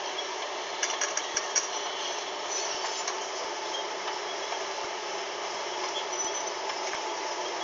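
Walking dragline working in a phosphate mine: a steady machinery noise, with a few short metallic clanks about a second in.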